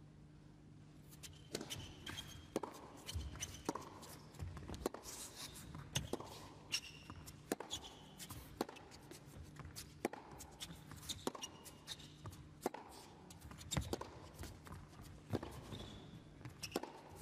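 Tennis rally on an indoor hard court: the ball is struck by rackets and bounces about once a second, with brief high squeaks of players' shoes on the court between strokes. A low steady hum runs underneath.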